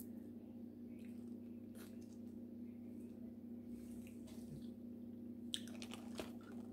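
Wet shells of boiled seafood being peeled and cracked by hand, with soft squishing, chewing and a few sharper clicks near the end, over a steady low hum.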